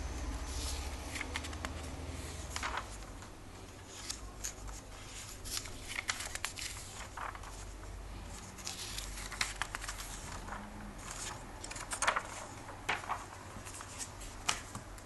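Comic book pages being turned by hand: irregular paper rustles and flicks, with a low rumble underneath in the first few seconds.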